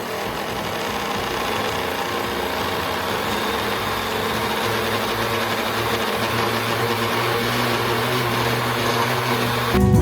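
Electric blender motor running steadily, blending the cream cheese mixture until smooth. It whirs with a low hum that strengthens in the second half, then cuts off suddenly near the end.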